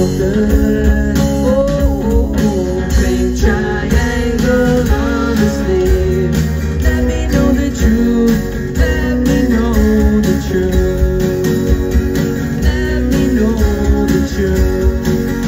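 Live rock song on acoustic guitar and bass guitar, with a man singing over them.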